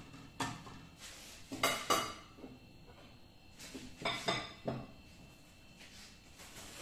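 Kitchen utensil clatter: a few sharp clinks and knocks of a utensil against a non-stick frying pan and then on a counter and plate, the loudest about two seconds in and another cluster about four seconds in.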